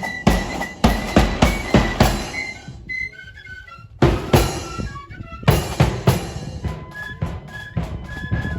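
Accordion band playing a march with bass drum and snare drums. The drums drop out for about a second and a half near the start, leaving the accordion melody alone, then come back in heavily about four seconds in.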